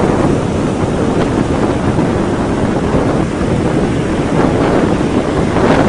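Wind buffeting the camera's microphone: a loud, steady rushing noise.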